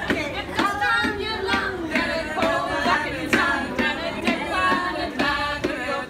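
A group of voices singing a song together, with sharp percussive hits keeping time.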